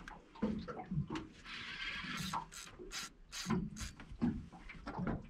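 Spinning reel working against a hooked fish: a short hiss of line pulled off against the drag, then a run of sharp clicks about every half second as the reel works under load.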